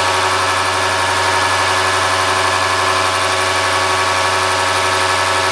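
Bosch test bench driving an overhauled Bosch H-series inline diesel injection pump at a steady speed, with the test injectors firing: a loud, steady mechanical whine and buzz with no change in speed.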